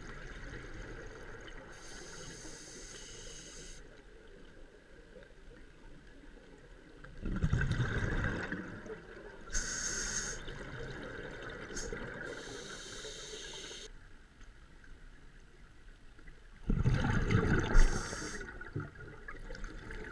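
Scuba diver breathing through a regulator underwater: short hissing inhalations and two louder bursts of bubbling exhaust bubbles, several seconds apart.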